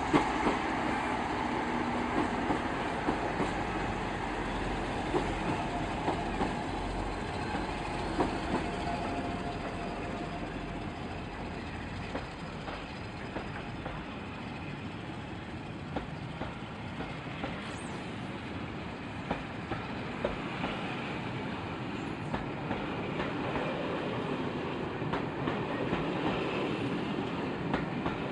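Train of Mark 1 coaches hauled by class 47 diesel locomotives rolling through the station, wheels clicking over rail joints. A low diesel engine drone fades out about halfway through.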